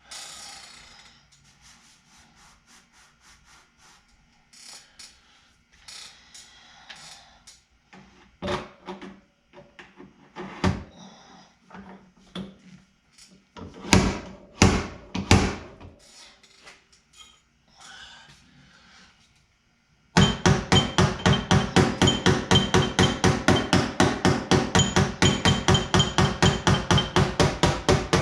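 Body hammer striking the sheet-metal body panel of a 2000 Chevrolet Suburban to work out a dent: scattered single knocks and taps, then a loud, steady rapid tapping at about five strikes a second for the last eight seconds or so.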